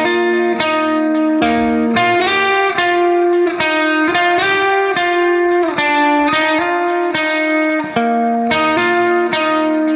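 Background music: a guitar plucking notes and chords, about two a second.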